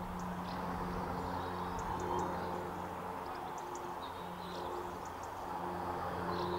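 Railway diesel engine idling with a steady low hum, and birds chirping briefly now and then above it.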